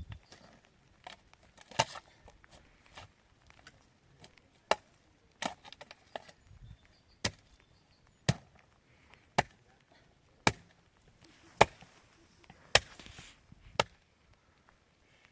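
Repeated sharp strikes on wood, a few irregular ones at first, then a steady run of about one blow a second.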